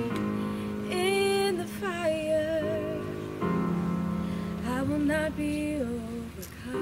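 A woman singing solo with keyboard accompaniment, her melody moving in held notes with vibrato over sustained chords.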